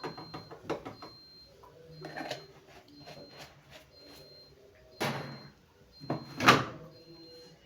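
Plastic detergent drawer of a washing machine being handled and pushed shut: light clicks and knocks, then two louder sliding knocks late on, the second the loudest.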